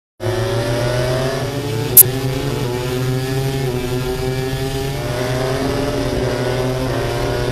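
A pack of MotoGP four-cylinder racing motorcycles accelerating hard, their engine notes rising and dropping back with each upshift. There is a single sharp crack about two seconds in.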